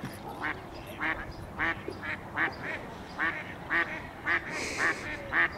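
Ducks quacking on the lake in a steady run of short quacks, about two a second.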